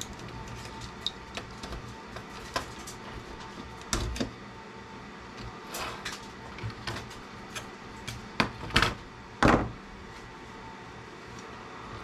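Pliers clicking, scraping and knocking against a CB radio's circuit board as parts are pried and snapped off it, in scattered sharp clicks with a few louder knocks about three quarters of the way in.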